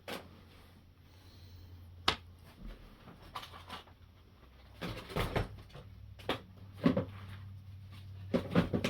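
Scattered clicks and light knocks of small RC car parts being handled and fitted, sharpest about two seconds in and near seven seconds, over a low steady hum.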